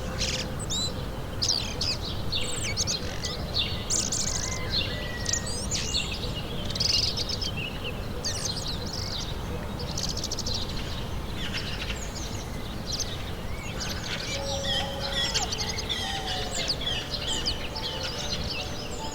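Several wild songbirds singing and calling at once, many short, varied phrases overlapping, over a steady low background rumble. Near the end a few low held tones come in under the birdsong.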